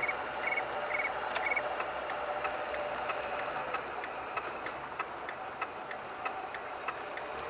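A run of short electronic beeps, about two a second, stops about two seconds in, over a steady low noise. A regular light ticking carries on throughout.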